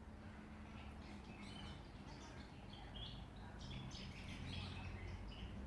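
Small Australian songbirds chirping, a run of short high notes that grows busier from about halfway, over a low steady hum.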